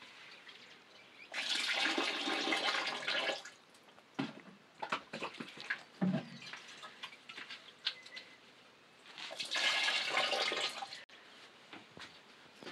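Water pouring or splashing twice, each a rushing burst of about two seconds, with a few small knocks and clatters in between.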